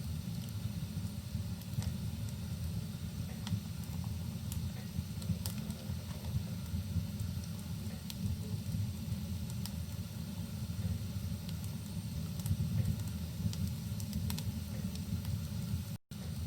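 Crackling fireplace: a steady low rumble of burning wood with scattered sharp pops, over a soft even hiss of rain. The sound cuts out for a split second near the end.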